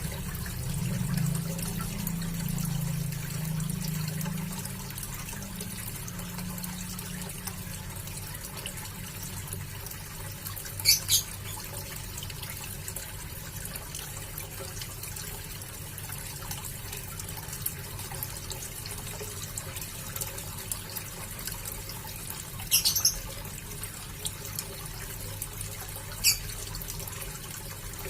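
Water trickling steadily in a small backyard fish tank, broken a few times by short sharp splashes of red tilapia at the surface.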